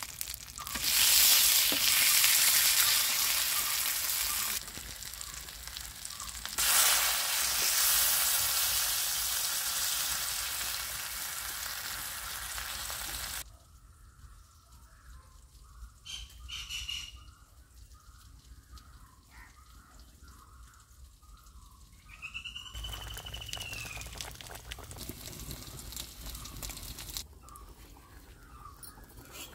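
Food frying in hot oil in a pan: a loud sizzle starts about a second in and eases off, flares up again about seven seconds in, and cuts off sharply near thirteen seconds. A softer sizzle returns for a few seconds near the end.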